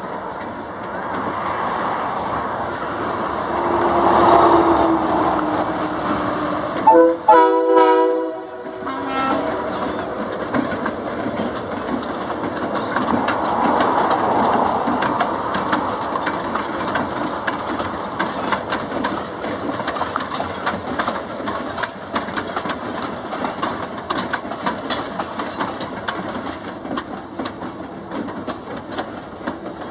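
EMD F7 diesel locomotive running past, with one air-horn blast of about two seconds near a quarter of the way in, the loudest sound. After it come the steady rumble and clickety-clack of locomotive and passenger-coach wheels over the rail joints.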